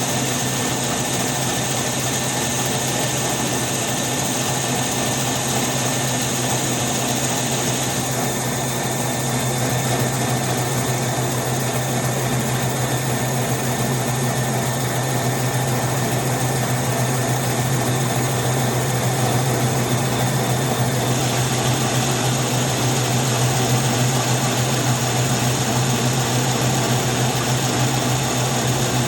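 Laser-guided concrete milling machine running steadily: a deep, even hum under a wide grinding hiss, the higher hiss easing off for a stretch in the middle.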